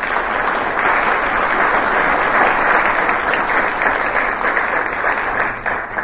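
Audience applauding: many hands clapping together in a dense, loud patter.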